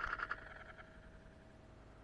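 A boot-step crunching into snow, its crackle dying away in the first half second, then a lull with only a faint steady whine.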